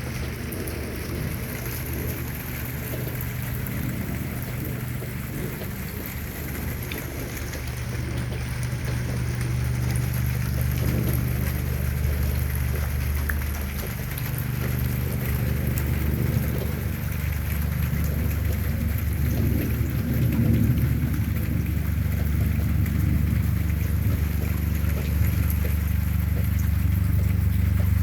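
Steady rain falling, with a deep low rumble underneath that grows louder in the second half.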